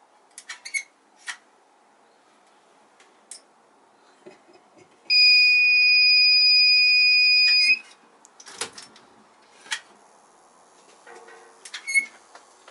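An alarm buzzer on a newly wired brewery control panel sounds one loud, steady, high-pitched beep for about two and a half seconds when the panel is first powered. It is a sign that something in the wiring is wrong, which the brewers trace to the timer. A few sharp clicks come before and after the beep.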